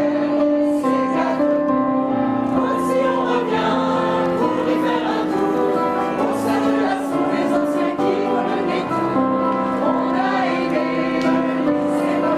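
Mixed choir of men and women singing in harmony, with long held notes that change pitch about every second.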